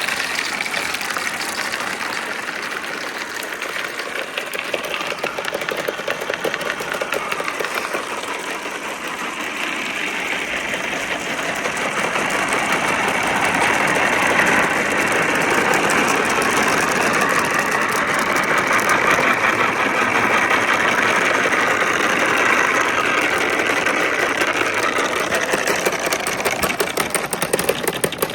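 Wooden marble run with marbles rolling and clattering along its right-angled wooden track: a continuous dense rattle of clicks that grows louder about a third of the way in.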